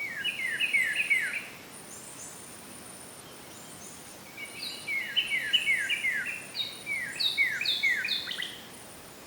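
Songbirds singing: two bouts of quick, falling chirps, a short one at the start and a longer one from about four and a half seconds in, with thin high notes above them.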